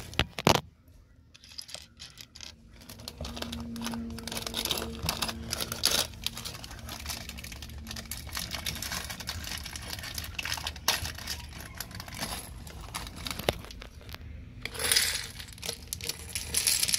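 Small plastic Lego pieces clicking and clinking together while a plastic parts bag crinkles, as the pieces are handled. There are sharp clicks about half a second in and a louder burst of rustling near the end.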